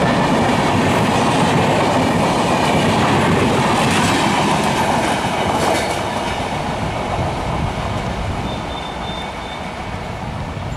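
LHB express coaches rolling past close by, their wheels clattering over the rail joints. About halfway through the sound drops to the quieter running of a train moving away along the track.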